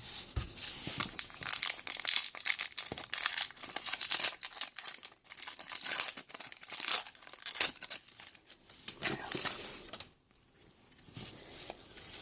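Plastic wrapper of a 2016 Donruss football card pack crinkling as it is torn open, with trading cards rustling as they are handled. The rustles come in irregular bursts and stop briefly about ten seconds in.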